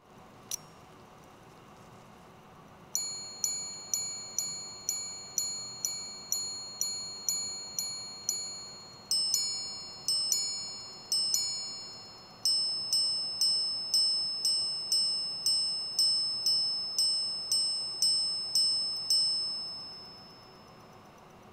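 Chopard L.U.C Full Strike Sapphire minute repeater striking the time on its monobloc sapphire gongs: a run of low chimes for the hours, three two-tone ding-dongs for the quarters, then a run of high chimes for the minutes, each note ringing clear and dying away. A small click sounds just before the striking starts.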